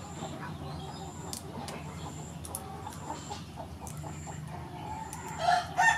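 A chicken calling loudly near the end, a short pitched cluck-like call. Underneath, a steady outdoor background with a short high chirp repeating about once a second.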